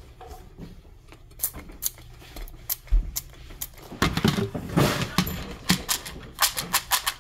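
Plastic finger-pump spray-butter bottle being pumped over popcorn: a string of sharp, irregular clicks with short hissy sprays, thickest about four to five seconds in, along with the rustle of handled popcorn.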